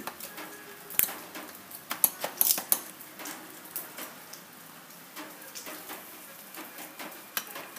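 Sharp metallic clicks and clinks, a handful spread over several seconds with a quick cluster about two and a half seconds in, from a steel masonry drill bit being worked in the chuck of a Hilti hammer drill as the chuck sleeve is pushed back to release and seat it.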